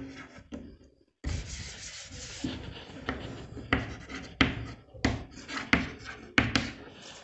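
Chalk writing on a blackboard: a run of short scratching strokes, starting after a brief silence about a second in.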